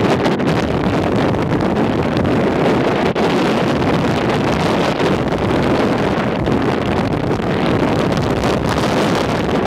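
Wind buffeting the microphone: a loud, steady rushing noise with no distinct boom.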